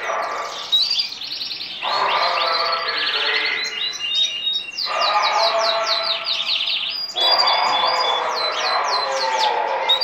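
Male Gibber-type hunchback canary singing, a continuous run of fast trills and rapidly repeated high notes in phrases that are only briefly broken.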